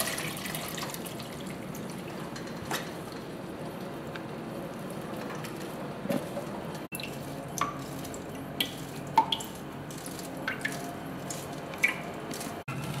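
Water dripping and trickling from soaked diced rhubarb as it is pressed in a metal sieve over a stainless steel sink, with a few light clicks of a plastic masher against the sieve.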